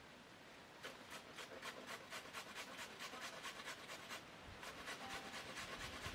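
Carrot being grated on a metal box grater: faint, rhythmic rasping strokes, about five a second, starting about a second in, with a brief pause just after four seconds before the strokes resume.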